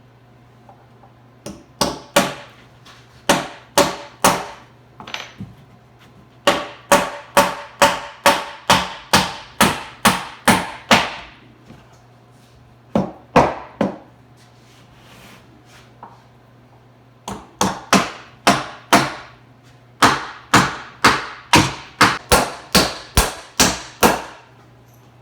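Hammer driving nails into wooden framing lumber, struck in runs of about two blows a second with short pauses between the nails.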